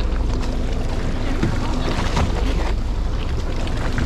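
Fishing boat's engine running with a steady low rumble, with wind on the microphone and the sea washing along the hull.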